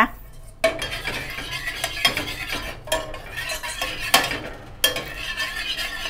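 A metal spoon stirring thin sauce in a saucepan, scraping steadily around the pan and clinking against it several times. The stirring starts about half a second in.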